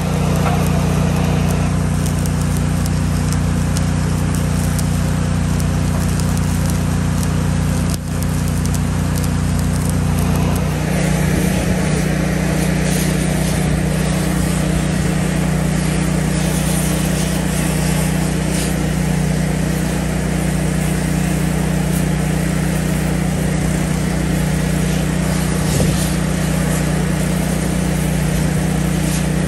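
A motor running steadily at a constant speed, with a steady hum and a noisy hiss above it. About ten seconds in, the tone shifts: the low hum thins and the hiss grows brighter.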